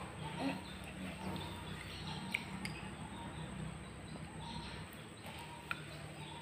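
Faint wet clicks and smacks of a small child's mouth sucking and licking a chocolate-coated ice cream bar, a few sharp ones scattered through, over a low steady hum and faint repeated chirping.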